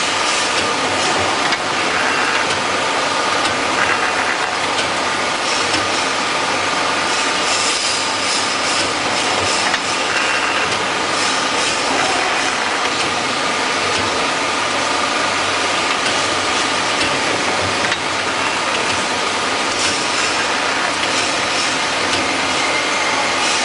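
CNC automatic saw-blade grinding machine running, with a continuous dense grinding hiss and a steady high whine that keep an even level throughout.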